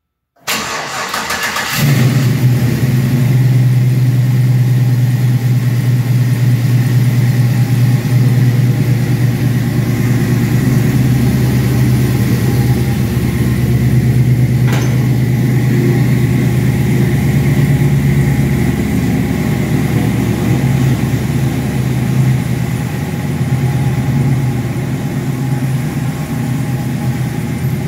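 Cold start of a Chevrolet V8 in a classic Camaro: the starter cranks for about a second and a half, the engine catches about two seconds in, and it settles into a loud, steady idle.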